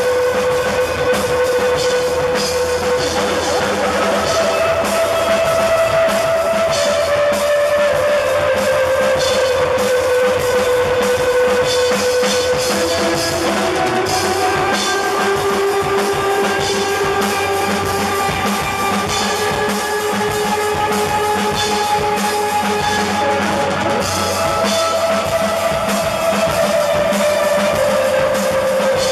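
Live rock band playing an instrumental passage: guitar holding long, slowly shifting notes over a steady drum-kit beat.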